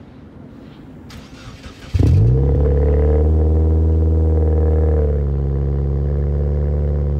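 Subaru WRX turbocharged flat-four cold-starting through a Tomei catback exhaust: it fires up suddenly about two seconds in, then settles into a loud, steady high cold idle that drops slightly about five seconds in.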